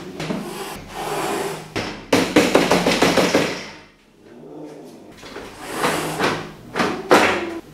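Wire-mesh cage rattling and clanking as it is set upright on a metal table and its door is shut, in clusters of quick metallic strokes with a sharp clank about seven seconds in.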